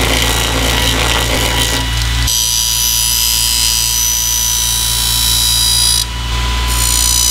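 Bench grinder running with a paper buffing wheel loaded with fine buffing compound, a steel lawn-mower-blade cleaver held against it to hone the edge. A steady motor hum under a rough hiss, becoming a high whine about two seconds in that dips briefly near six seconds and comes back.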